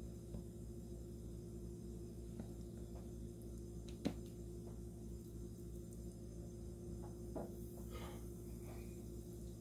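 Faint soft rustling and patting of a raw chicken wing being tossed and coated in flour in a bowl, with one sharp knock about four seconds in, over a steady low hum.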